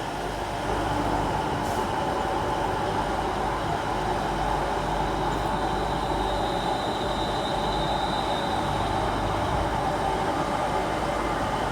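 East Midlands Railway Class 360 electric multiple unit giving off a steady electrical hum, with a faint high whine about halfway through.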